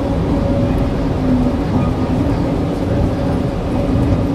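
DFW Skylink airport people-mover train running, heard from inside the car: a steady low rumble with a faint motor hum.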